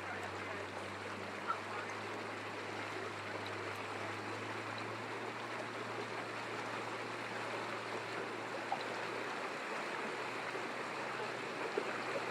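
Steady rush of water and air around a moving boat, with a low motor hum underneath that fades away about nine seconds in.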